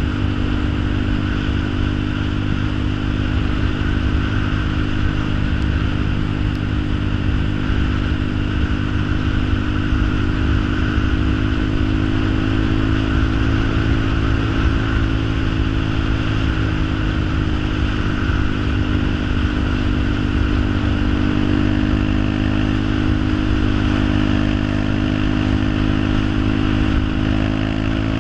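A motor or engine running steadily at a constant speed, with a low drone that barely changes in pitch.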